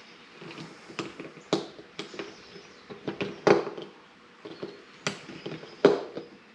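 A string of irregular light knocks and clicks from handling things by hand, with two louder knocks about three and a half and six seconds in.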